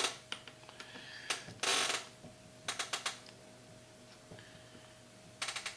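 A hex key and screws clicking and rattling in a few short bursts as bolts are tightened on a gaming chair, with a quick run of clicks near the end, over a faint steady hum.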